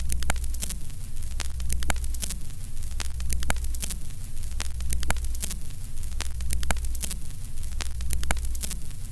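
Vintage film-countdown sound effect: crackling and popping like a worn film soundtrack over a steady low hum, with a pattern that repeats about once a second as the count goes down.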